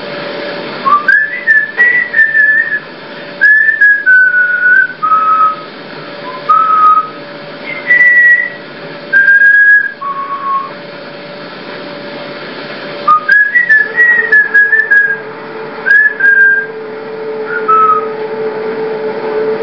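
A person whistling a slow tune: held notes, mostly stepping down in pitch, in two phrases with a pause of a couple of seconds between them, over a steady low hum.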